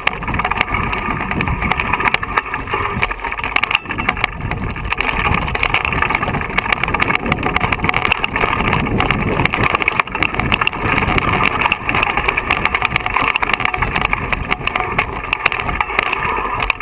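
Mountain bike riding down a loose rocky trail: tyres crunching over stones and the bike rattling with many small knocks.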